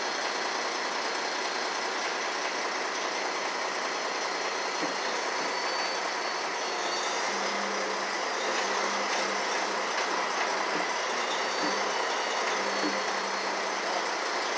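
Heavy truck engine running steadily at idle, with a faint low hum coming and going in the second half.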